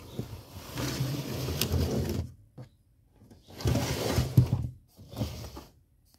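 Rubbing and scraping handling noise in three bursts, the longest in the first two seconds, as the DVD/VCR unit and the cables at its back are handled.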